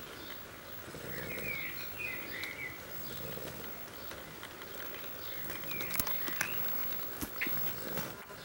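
A sleeping litter of young animals snoring, with soft breaths coming back every two to three seconds. High little squeaks come about a second in and again near the end, and there are a few sharp clicks.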